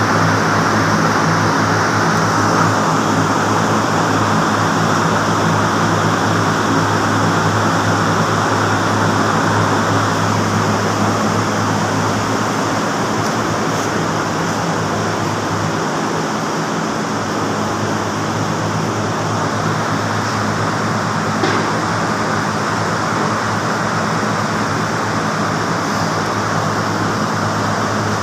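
Diesel generator engine running steadily at a constant speed: an even low hum under a broad rushing noise, with one faint tick about two-thirds of the way through.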